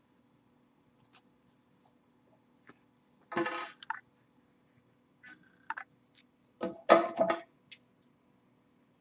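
Light handling sounds as yarn is knotted on a cotton towel: faint clicks and a short rustle about three seconds in. Near the end comes a louder cluster of knocks and clatter as a pair of scissors is picked up off a hard tabletop.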